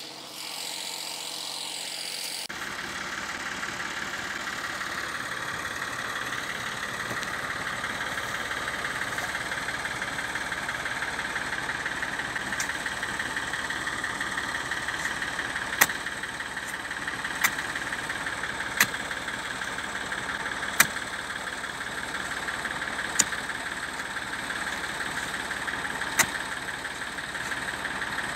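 Diesel engine running steadily, coming in after about two seconds. From the middle on, it is overlaid by a series of sharp strikes, one every one to three seconds, as a hoe is driven into the soil.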